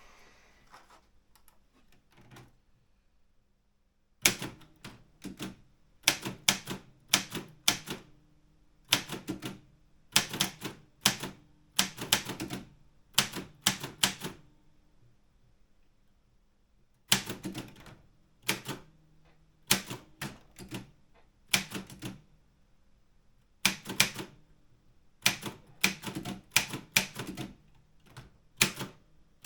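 Optima Elite 3 manual typewriter being typed on: quick runs of sharp key strikes that start about four seconds in, stop for a couple of seconds midway, then resume.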